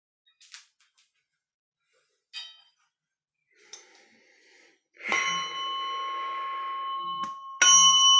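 A few faint taps, then a bell-toned instrument struck about five seconds in, ringing with several steady high tones. It is briefly damped, then struck again more loudly near the end and keeps ringing.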